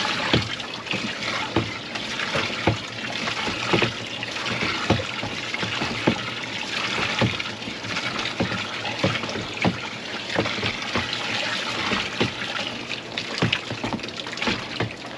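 Water sloshing and trickling in a plastic garbage can as an alum solution is poured and stirred into salt water to make a tanning bath, with frequent small knocks throughout.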